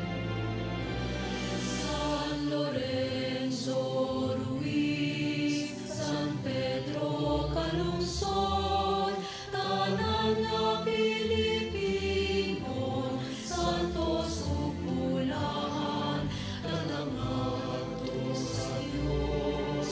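Choir singing a slow church hymn with instrumental accompaniment, the communion hymn of the Mass.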